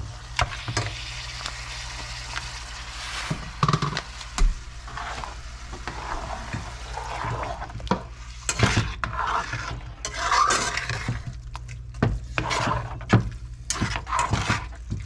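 Ground beef with taco seasoning and water sizzling in a skillet while a spatula stirs and scrapes it; partway through, a spoon stirs a pot of thick bean stew, with scraping and clinks against the metal pot.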